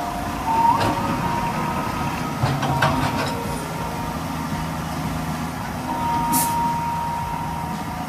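Komatsu tracked excavator working: its diesel engine and hydraulics running steadily as the boom and bucket move, with a thin high whine that grows strongest near the end. A few metallic clanks come about a second in and again around three seconds in.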